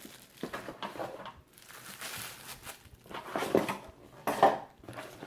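Bubble wrap and plastic packaging crinkling and rustling as a boxed steering-wheel quick release is unwrapped by hand, with a few light clinks of small metal parts. The loudest handling noise comes near the end.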